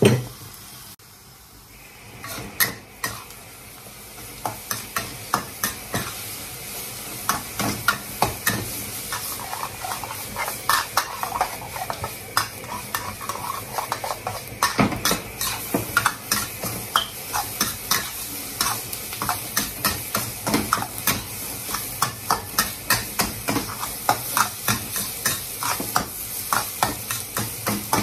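Fried rice being stir-fried in a wok: a metal spatula scraping and knocking against the pan in quick, repeated strokes over a steady sizzle. The strokes start about two seconds in.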